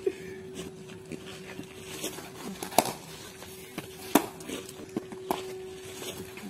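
Cricket bat striking a leather ball in the nets: sharp cracks, the two loudest about three and four seconds in, with fainter knocks between them. A faint steady hum runs underneath.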